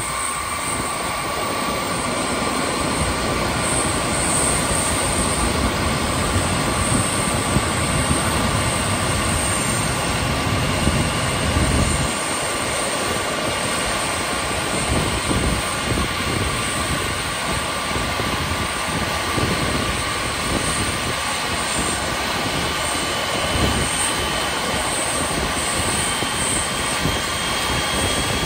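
Boeing 747-8's newly installed GEnx turbofan being started on the wing for an operational check: a steady rushing whine with a steady mid-pitched tone and a low rumble that eases about halfway through, and a faint rising tone near the end as the engine spools up and the smoke of a fresh engine's first run blows out.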